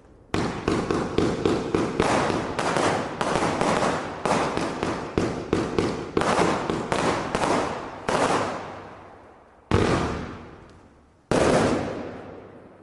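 151-shot consumer fireworks battery (cake) firing a rapid string of shots, about three or four a second, for roughly eight seconds. Then come two last single bangs, each fading away.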